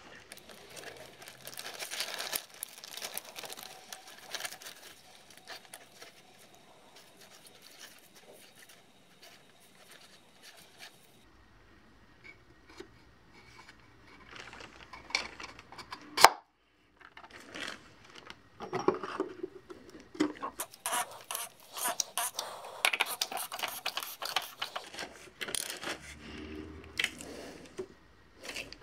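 Hand-work noises from servicing an oil filter: plastic sheeting crinkling and rustling, with scattered light clicks and knocks as the plastic oil filter housing cap and a new paper filter element are handled.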